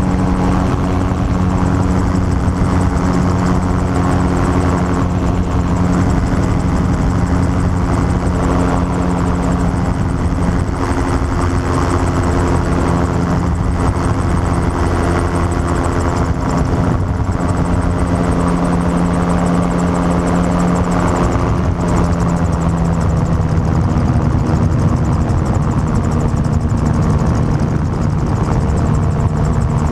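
Gyrocopter in flight, heard from its open cockpit: the engine and propeller drone steadily. The engine note shifts a little in pitch a couple of times.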